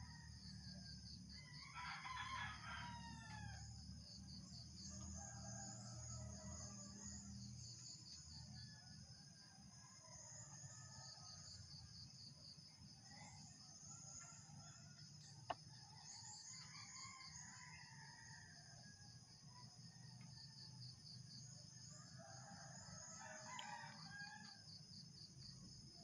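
Roosters crowing faintly, again and again, over a steady pulsing trill of insects. A single sharp click about halfway through.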